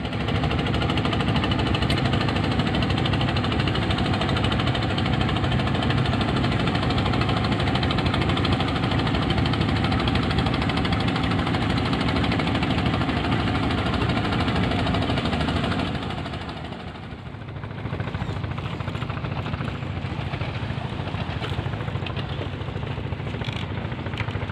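Boat engine running steadily, easing down about two-thirds of the way through and then carrying on a little quieter.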